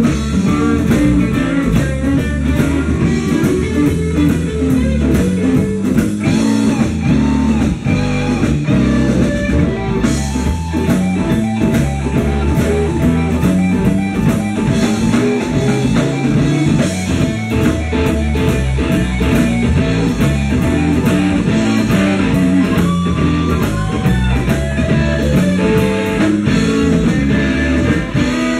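Live blues band playing an instrumental stretch: guitar lines over drums keeping a steady beat.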